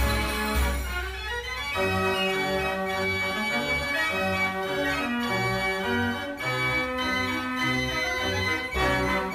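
An 89-key Marenghi fair organ playing a dance tune: its pipes sound a moving bass line under chords and melody.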